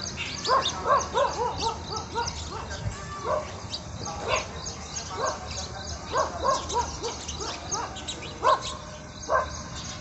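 Many short, squeaky animal calls overlapping irregularly, with thin high chirps above them.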